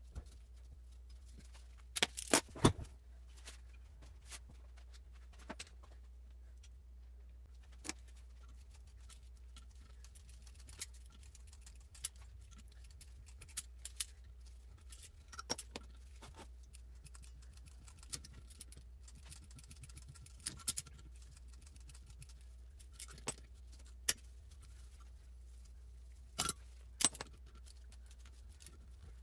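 Scattered metallic clicks and clinks of hand tools and valve parts on a cast-iron A-series cylinder head as it is being taken apart, loudest in a quick cluster about two seconds in and again near the end, over a steady low hum.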